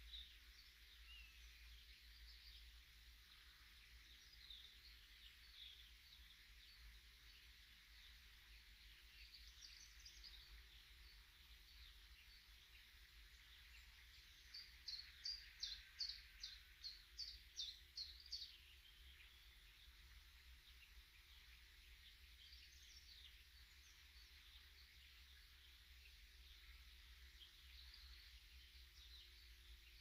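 Faint birdsong from several small birds: scattered high chirps, and midway one bird repeating a sharp high note about ten times in quick succession, over a low steady rumble.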